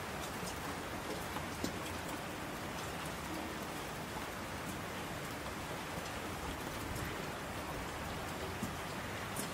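Steady rain falling, with a few louder single drops ticking out above the constant hiss.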